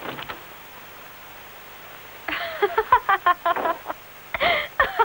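A woman laughing in quick, rhythmic bursts, starting about two seconds in, pausing briefly, then laughing on, over the steady hiss of an old film soundtrack.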